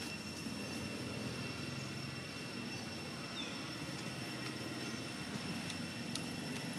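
Steady low rumble of outdoor background noise, engine-like, with a thin steady high-pitched tone over it and a few faint ticks.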